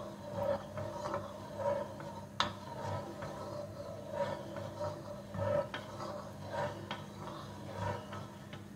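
A spatula scraping and stirring around the bottom of a nonstick pot of milk-and-egg cream as it heats on the stove, in soft repeated strokes roughly once a second.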